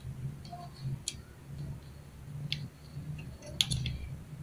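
A few small, faint clicks and taps as a flat flexible ribbon cable is pushed into the T-con board's connector, the sharpest a little past halfway, over a faint low hum.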